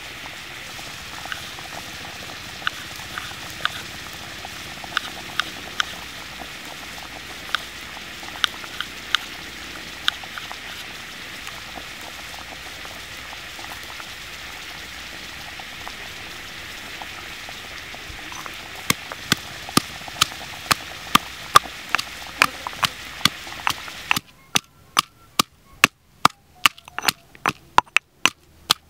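Over a steady hiss, scattered sharp taps and then a quicker run of knocks on a wooden cutting board. Near the end the hiss drops away and a stone pestle pounds garlic in a stone mortar, sharp knocks about two a second.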